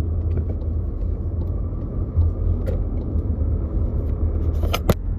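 Steady low rumble of a car heard from inside its cabin, with two sharp clicks shortly before the end.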